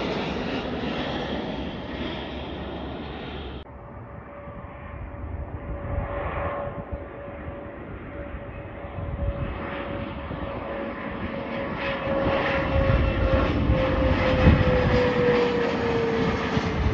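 Twin turbofan engines of a Bombardier Challenger 800 business jet flying overhead: a steady engine whine over rumble that grows louder and slides down in pitch as the jet passes. The first few seconds hold the roar of another passing aircraft, cut off abruptly.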